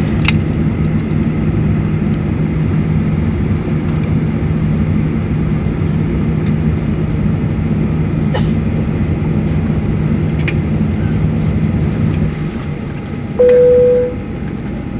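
Cabin noise of a Boeing 737-800 taxiing slowly to its gate, a steady low hum with a few light clicks. The hum falls away about twelve seconds in. Shortly after comes a brief single chime, the cabin chime that sounds as the seatbelt sign goes off at the gate.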